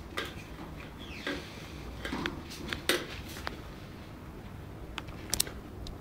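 Handling noises: a few scattered clicks and light knocks as small objects are moved about and set down on a tiled floor.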